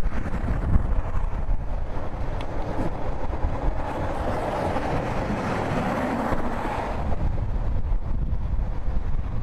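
Steady low rumble of heavy machinery running, with wind on the microphone. A rushing noise swells from about three and a half to seven seconds in, then fades back.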